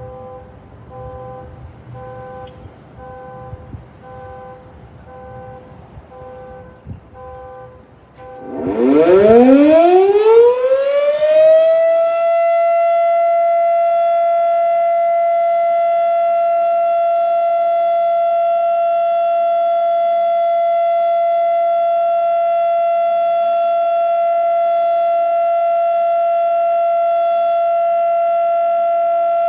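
E.D. Bullard Model 5-VNC fire siren winding up about eight seconds in, its wail rising steeply in pitch for some three seconds and then holding one steady tone for a short-alert test. Before it there is only faint background noise with a soft repeating beep.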